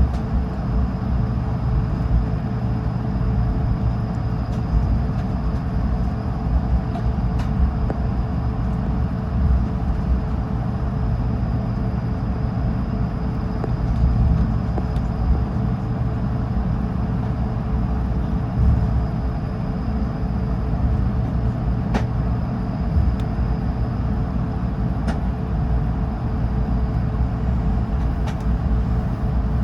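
Airbus A220-300 cabin noise while taxiing: a steady low rumble from the wheels and engines at low thrust, with a faint steady hum. There are a few faint clicks in the second half.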